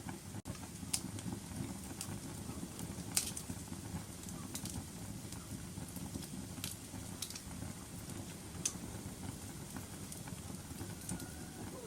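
Wood fire burning in a fireplace: a steady low rumble of flames with sharp crackling pops every second or two, the loudest about three seconds in.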